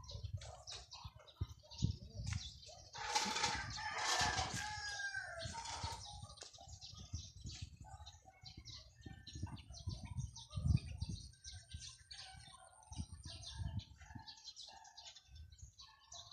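Small birds chirping in short, scattered calls, over low thumps and rustling from leaves brushing against a handheld phone. A louder, longer burst of sound comes about three to five seconds in.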